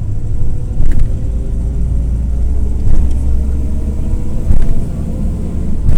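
Cummins ISF 3.8 four-cylinder diesel of a Volare W9C minibus running under way, heard from inside the bus: a steady, loud low drone with road rumble.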